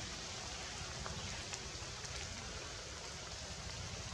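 Steady rain falling on tree leaves, a continuous hiss with a few separate drops ticking through it.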